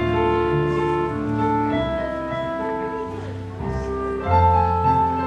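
Instrumental theatre music from the pit orchestra: sustained chords that shift every second or so, with no singing.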